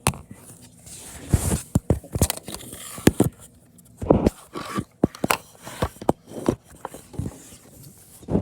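Handling noise from a camera being moved and tucked into a hiding place: irregular knocks, bumps, scrapes and rustling close to the microphone.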